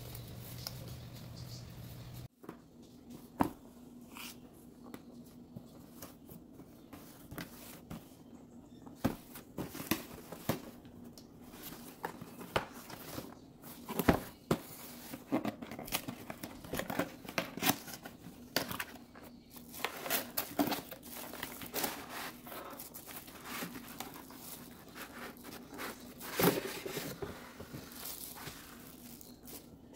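Unboxing handling noise: a plastic wrapping bag crinkling, paper pages and moulded pulp packaging rustling, with scattered knocks. It comes in irregular bursts after a low steady hum that cuts off about two seconds in.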